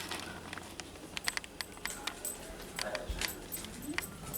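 A rapid, irregular series of sharp small clicks and taps, like small hard objects being handled or knocked together.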